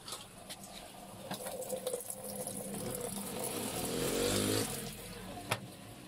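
Water rushing, building over a few seconds and stopping short after about four and a half seconds, with a few light clicks along the way.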